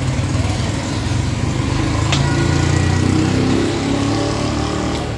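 A motor engine running steadily, swelling louder through the middle and easing off near the end, with a single sharp click about two seconds in.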